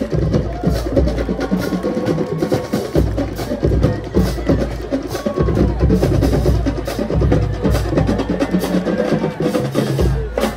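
Marching band playing, with rapid drum strokes throughout.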